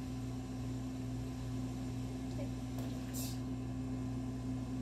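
Steady low hum of a kitchen appliance, with two held low tones, running without change. About three seconds in there is a brief hiss.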